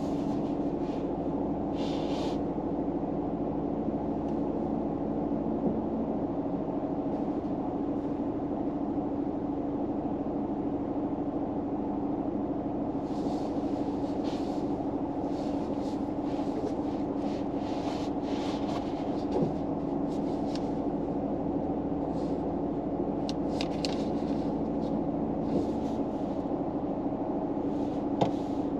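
Steady low hum inside a car, with a constant tone under it, typical of an idling engine or a running fan. Scattered faint ticks and rustles come through the hum, more of them in the second half.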